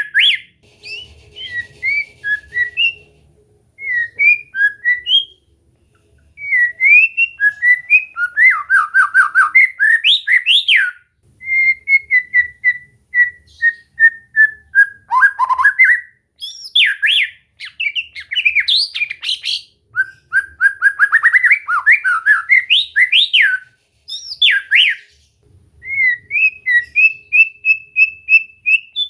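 White-rumped shama (murai batu) singing a long, varied song. Loud whistled phrases alternate with fast runs of repeated sharp notes, with short pauses between phrases, and one slow series of notes falls steadily in pitch about halfway through.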